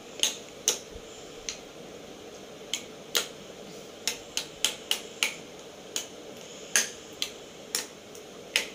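Steel spoon clinking against a glass bowl in irregular sharp taps, one or two a second, as it mashes bael (wood apple) pulp into cold water by hand.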